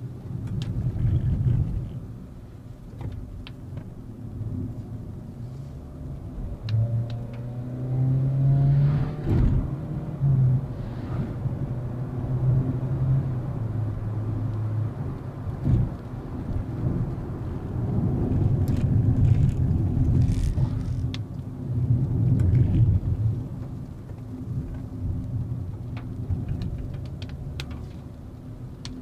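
Volkswagen Vento's 1.2 TSI four-cylinder turbo petrol engine and tyre noise while driving. A low, uneven rumble swells and fades throughout. About seven seconds in the engine note rises under acceleration, then eases down again by about fifteen seconds.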